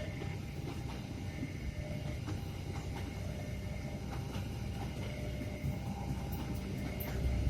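A train running along the track with a steady low rumble and a few faint clicks.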